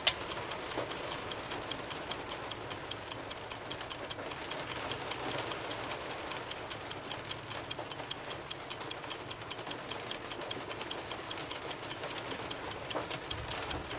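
Clock-ticking countdown sound effect, fast and evenly spaced, timing a 15-second load test on a battery with a carbon pile tester.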